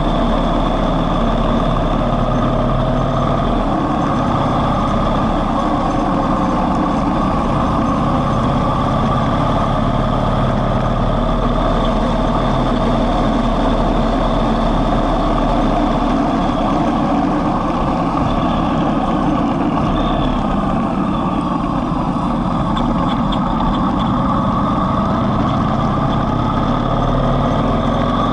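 Yamaha MT-01's 1670 cc V-twin engine running steadily on the road, heard from a bike-mounted camera with wind noise. The bike speeds up, then slows in the second half.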